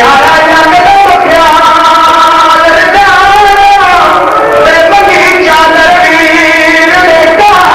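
A man chanting an elegiac masaib recitation in long held notes that glide slowly from pitch to pitch.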